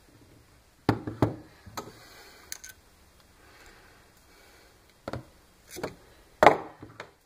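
Needle-nose pliers working a stiff wire on a wooden bench: a scattering of sharp clicks and knocks in irregular clusters, the loudest near the end.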